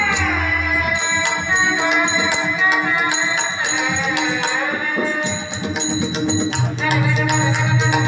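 Shehnai melody of long held notes that slide in pitch, over steady jingling hand percussion; a low drone comes in near the end.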